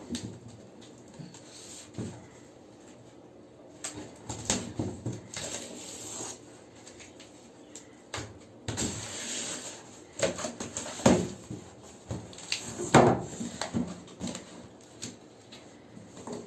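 Cardboard box and packaging being opened and handled: scattered knocks, taps and rustling, with the loudest knocks in the second half.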